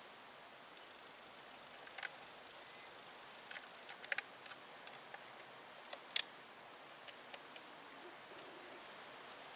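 Scattered sharp clicks and taps from handling a solar panel and its mounting parts by hand, with three louder clicks about two seconds apart over a faint steady background.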